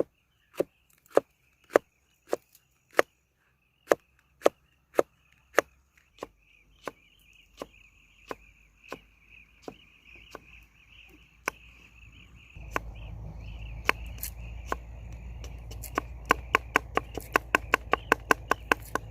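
Knife chopping food on a cutting board in steady strokes about every half-second, then a quick run of faster chops near the end. Insects chirr steadily in the background, and a low steady rumble comes in about two-thirds of the way through.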